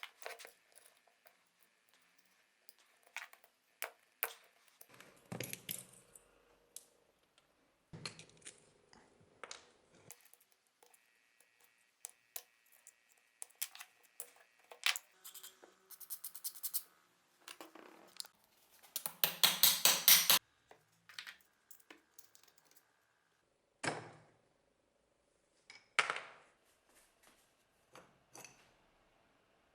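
Metal parts of an old powder-actuated nail gun clicking and clinking as they are handled and taken apart by hand, with a short burst of rapid strokes about two-thirds of the way through.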